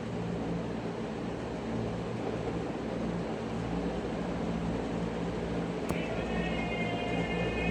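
A steady low mechanical hum, with a sharp click about six seconds in, followed by faint high-pitched tones.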